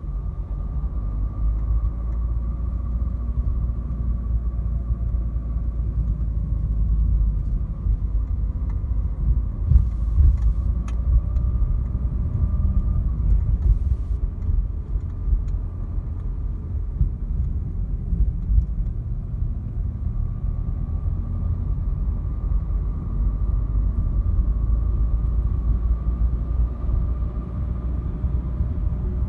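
Inside the cabin of a Renault Clio 4 with the 1.5 dCi 90 diesel and EDC gearbox under way: a steady low rumble of engine and tyre noise on the road. A few light knocks come about ten and fourteen seconds in.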